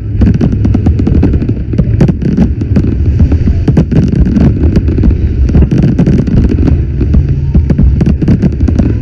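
Fireworks going off: a dense, irregular string of sharp cracks and pops over a constant heavy low rumble.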